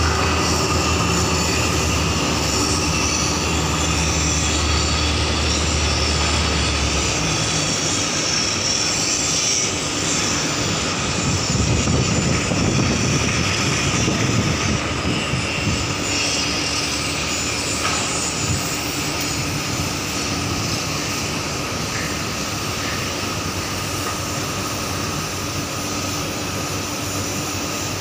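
Steady drone of marine engines, with a deep low hum that drops out about seven seconds in.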